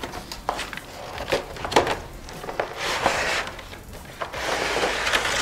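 A product box and its plastic packaging being opened and handled: a string of light clicks and knocks, with stretches of crinkling and rustling about three seconds in and again near the end.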